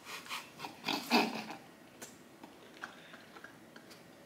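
A man's short bursts of non-speech vocal noise, loudest about a second in, then a few faint clicks.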